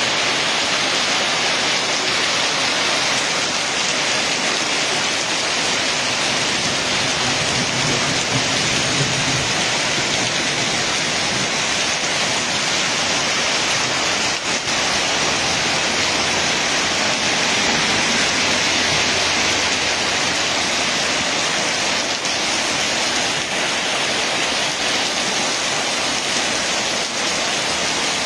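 Heavy rain falling steadily on a hail-covered street, an unbroken even noise. A car rolls past through the slush partway through, adding a faint low rumble.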